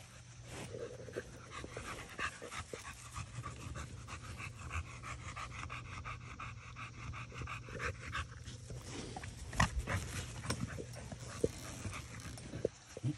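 An American Bully dog panting, a steady run of quick breaths.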